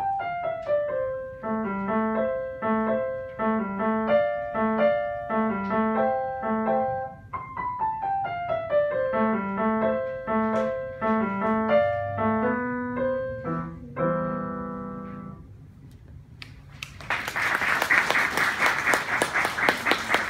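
Bösendorfer grand piano playing a jazzy solo piece with falling runs over a repeated low figure, ending on a held chord that fades out about fifteen seconds in. After a short pause, an audience applauds.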